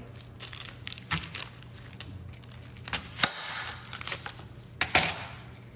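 Chef's knife cutting an onion on a hard plate: crisp crunches and sharp clicks as the blade goes through and strikes the plate, with dry onion skin crackling. The loudest crunch comes about five seconds in.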